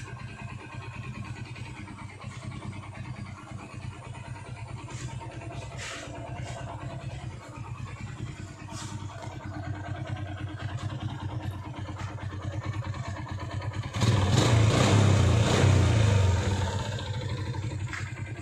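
Yamaha LC135's single-cylinder four-stroke engine idling steadily, then revved for about two and a half seconds near the end before dropping back to idle.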